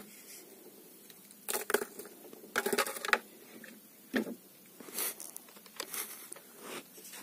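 Scattered light knocks, clicks and rustles of something being handled, irregular and short, with the busiest clatter about three seconds in.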